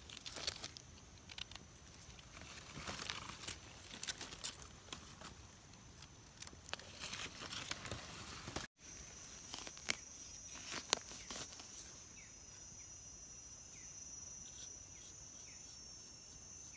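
Dry leaf litter rustling and crackling with small knife scrapes as mushrooms are cut from the forest floor. After a short break about halfway, a steady high insect drone takes over, with a few sharp clicks.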